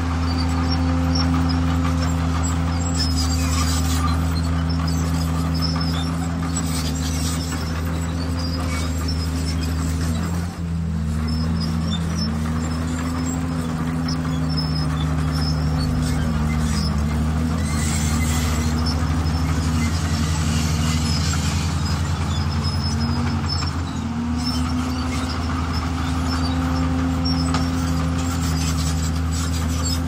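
Heavy diesel engine of a construction machine running steadily, its revs wavering up and down in the middle of the stretch, with a brief dip in level about ten seconds in.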